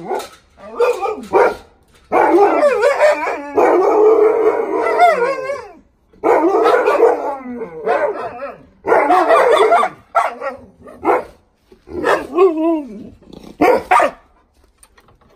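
Alaskan malamute grumbling and howling at another dog in several bouts of long, wavering woo-woo calls, the longest nearly four seconds, with shorter calls between: a grumpy dog protesting in a squabble.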